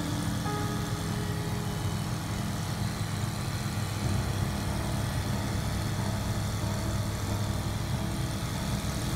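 Single-engine light aircraft's engine and propeller running steadily in cruise, heard inside the cockpit as an even, low drone.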